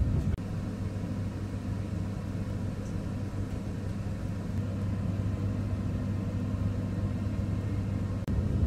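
Steady low rumble and hum of a moving electric commuter train, heard from inside the carriage. The sound briefly drops out near the end.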